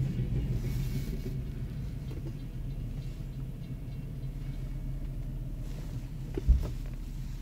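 Steady low rumble heard inside a car's cabin at a railroad crossing, easing slightly over the first few seconds. A single sharp thump comes about six and a half seconds in.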